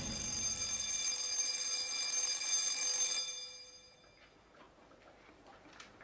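A bright ringing metallic tone with many overtones starts suddenly, holds for about three seconds and then dies away. A few faint clicks follow.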